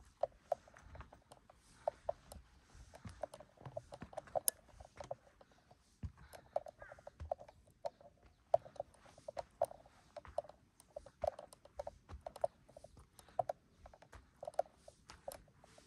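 Footsteps of a hiker on a mountain trail: short knocks at an uneven pace of about two a second.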